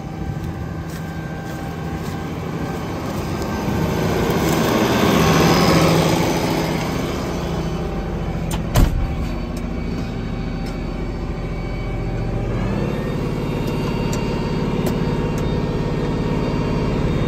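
IH 1486 tractor's six-cylinder turbo diesel running under load in the cab. Its sound swells and grows louder a few seconds in, there is one sharp clunk about nine seconds in, and the engine note steps up about thirteen seconds in.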